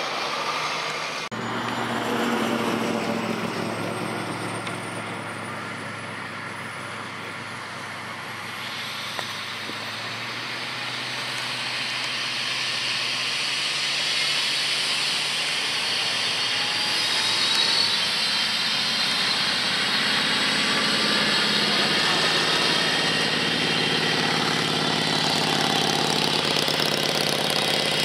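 Eurocopter EC135's twin turboshaft engines running with the main rotor and fenestron tail rotor turning on the ground: a steady turbine whine and rotor noise. Over the second half the whine rises in pitch and grows louder as the helicopter spools up toward takeoff.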